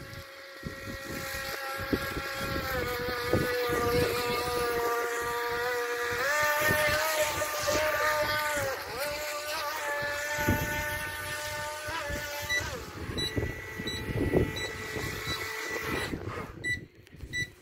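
Small radio-controlled boat's motor whining, its pitch stepping up and down several times as the throttle changes, with wind buffeting the microphone. Near the end the whine stops and short high beeps repeat.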